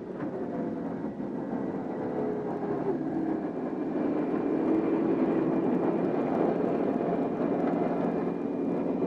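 Steady engine drone, growing louder over the first few seconds, with a whine that slowly falls in pitch near the start.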